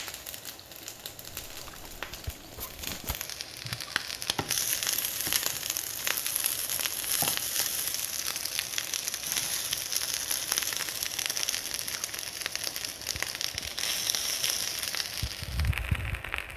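Fried rice with bacon and egg sizzling in a hot pan, with many small pops and crackles. The sizzle grows louder about four seconds in. A few low thumps come near the end.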